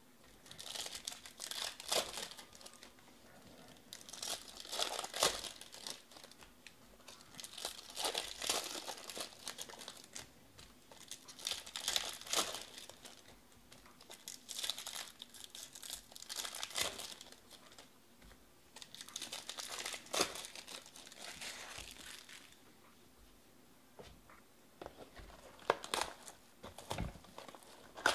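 Foil wrappers of 2020 Topps Finest baseball card packs crinkling and tearing as they are ripped open by hand. The crackling comes in short bouts every three to four seconds, with quiet gaps between.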